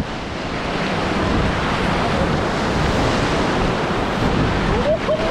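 Steady rush of whitewater river rapids, with wind buffeting the microphone. A few short rising-and-falling calls come near the end.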